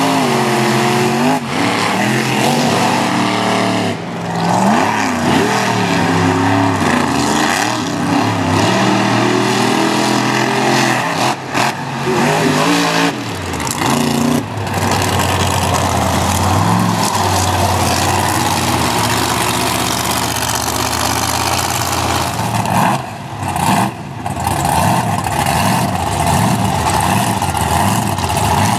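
Monster truck's engine revving hard, its pitch swinging up and down again and again in the first half, then held high and steady, with a few brief throttle lifts.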